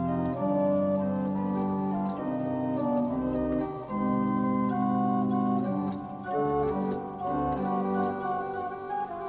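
Pipe barrel organ playing from its pinned cylinder: sustained organ-pipe notes in held chords that change every second or so, with faint ticks high above the notes.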